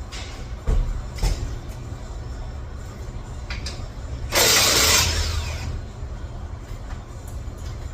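Mechanical working noise: a steady low rumble, two sharp knocks about a second in, and a loud hissing rush lasting about a second and a half midway.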